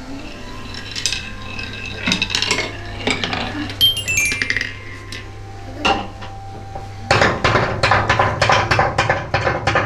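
Wooden toys clattering: scattered wooden knocks, then a rapid run of clicks and clacks from small wooden pieces tumbling down a slanted wooden rack toy, loudest in the last few seconds. About four seconds in there is a quick falling run of bell-like notes.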